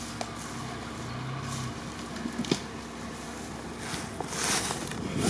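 Off-road 4x4's engine running steadily at low idle. A sharp click comes about two and a half seconds in, and a broad rush of noise swells near the end.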